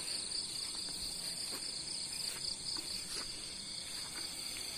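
Steady chorus of insects, a high continuous trill, with a few faint soft thuds.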